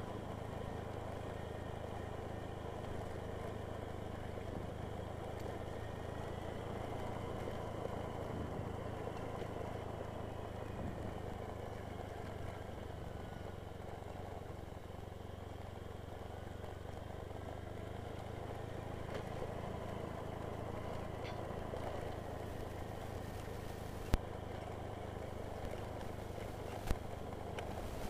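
Motorcycle engine running steadily under way, with road noise and a couple of sharp clicks near the end.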